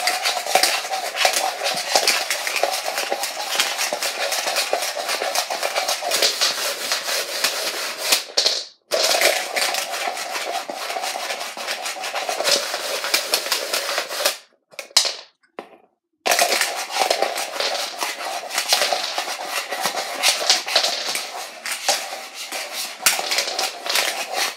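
Dice stacking with a plastic cup: the cup is swirled fast over a hard floor, its rim scraping while the dice rattle and click inside it in a continuous clatter. The clatter breaks off briefly about nine seconds in and again around fifteen seconds in.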